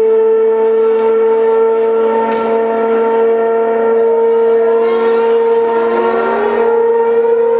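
Formula One car engine holding a steady, high-pitched note. A second engine's note rises underneath it about five seconds in.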